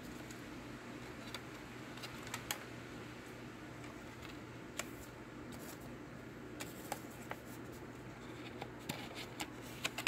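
Quiet room tone: a faint steady low hum with scattered soft clicks and ticks, handling noise from the handheld camera moving around the turntable.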